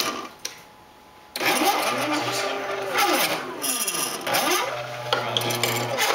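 Motors of a shuffleboard robot's gantry driving its carriage along threaded lead screws: a motor whine that sweeps up in pitch, holds and sweeps down again, several times in a row, as the carriage speeds up, travels and slows. There is a short pause about a second in before the moves begin.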